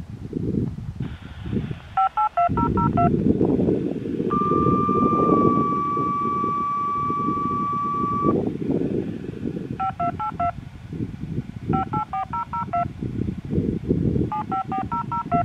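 Siren activation tones heard over a radio receiver: four quick strings of touch-tone (DTMF) digits, with a long steady beep of about four seconds between the first and second string. Choppy wind rumble on the microphone runs underneath.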